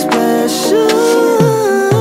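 Pop ballad music: a long held melody note over sustained chords. The deep bass is absent at first and comes back with falling slides about a second and a half in.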